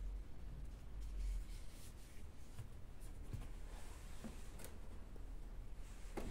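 Faint rubbing and a few light ticks of hands handling a plastic cord cover against the wall, with a low rumble in the first second or so and a short cluster of clicks near the end.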